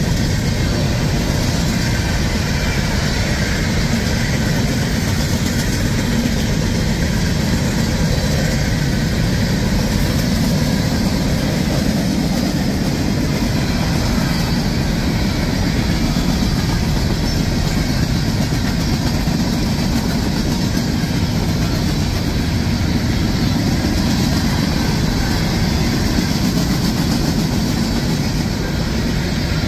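Open hopper cars of a CSX freight train rolling past, running empty to a rock quarry: a steady, unbroken rumble of steel wheels on rail.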